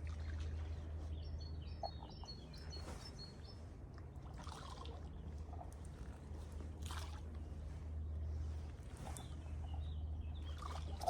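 Lakeside ambience: light water trickling and splashing over a steady low rumble, with a bird's quick run of high chirps about a second in.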